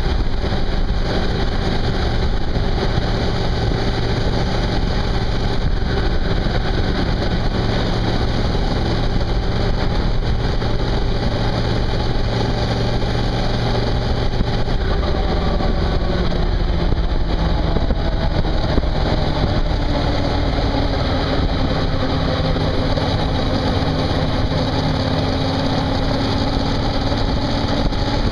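Suzuki V-Strom motorcycle running at road speed: a steady engine note under a constant rushing noise. The engine note changes about halfway through, and a higher steady tone comes in later.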